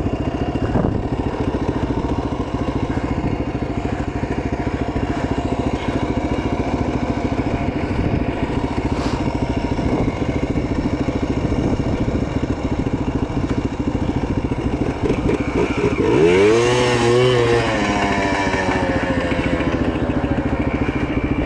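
Yamaha Blaster quad's single-cylinder two-stroke engine running steadily at idle, with one brief rise and fall in engine pitch about sixteen seconds in.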